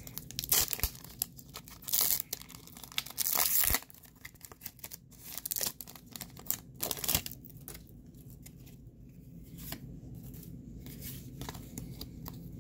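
Foil wrapper of a Pokémon trading-card booster pack being torn open and crinkled, in several short rips during the first four seconds and one more about seven seconds in. Quieter rustling of the cards being handled follows.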